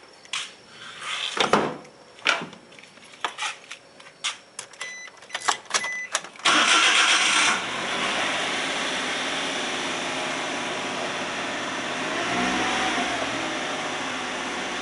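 Clicks and knocks, then about six and a half seconds in a Suzuki Every's three-cylinder 660 cc engine is started, with a brief loud burst as it catches, and settles into a steady idle. The idle is free of the abnormal noise the van had before its repairs.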